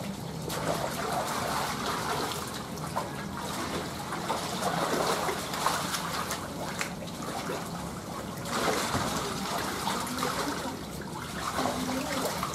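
Shallow muddy water in a concrete catfish pond splashing and sloshing as people wade through it and sweep a hand net, over a steady trickle of water.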